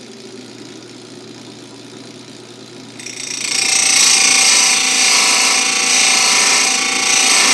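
Electric chainsaw-chain grinder running with a steady hum, then about three seconds in its abrasive wheel is lowered into a full-chisel cutter and a loud, steady hissing grind of wheel on steel takes over.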